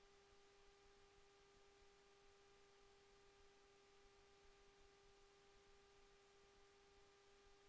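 Near silence: room tone with a faint, steady hum at one constant pitch.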